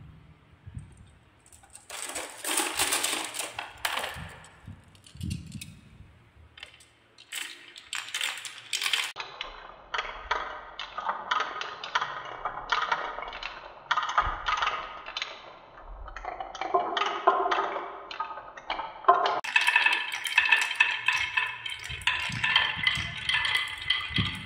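Glass marbles rolling down wooden marble-run tracks and a wooden spiral, clicking and rattling against the wood and each other. There are scattered bursts at first, then a steady clatter from about halfway that gets denser and louder in the last third as many marbles pour down together.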